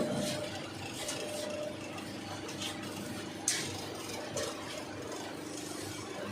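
Steady machine hum from a CNC press brake, with a few light metallic clinks and one sharp click about three and a half seconds in.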